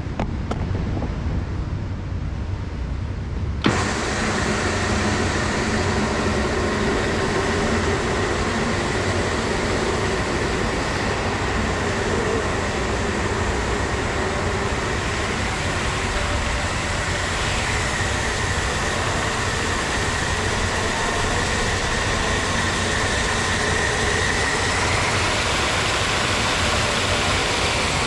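Tennant 5700 36-volt walk-behind floor scrubber: its electric motors kick on with a click about four seconds in, then run with a loud steady whine while the machine scrubs the wet floor.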